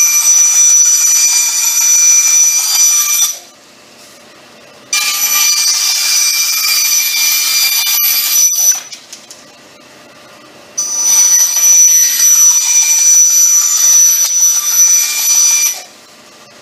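Bandsaw cutting quarter-inch plywood: a loud, high-pitched whine in three stretches of about four to five seconds each. Between them it drops away to a low hum as the blade comes out of the cut.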